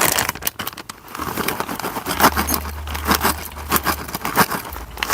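Close-up eating sounds: a person chewing a mouthful of noodle soup and pork, with irregular small clicks and crunches and a low hum that comes and goes.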